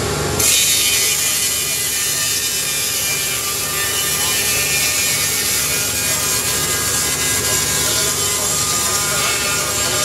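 Electric band sawmill's blade entering a log about half a second in and sawing steadily through it: an even hiss of the cut over the steady hum of its 4 kW electric motor.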